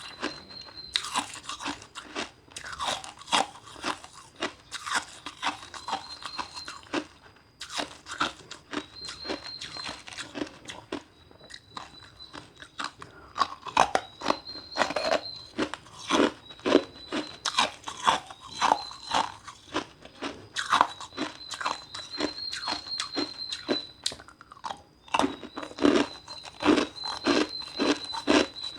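Ice being bitten and chewed, a quick run of sharp crunches with a couple of short pauses.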